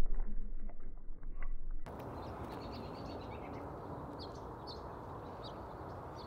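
Muffled rumble with a few faint knocks, cut off about two seconds in. Then a steady outdoor background with small birds chirping now and then.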